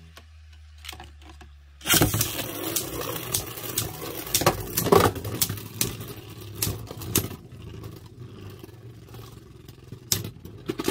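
Beyblade Burst spinning tops in a plastic stadium: one top spins with a low steady hum, then about two seconds in a loud clatter begins as a second top joins. The two tops grind, scrape and click against each other and the stadium floor.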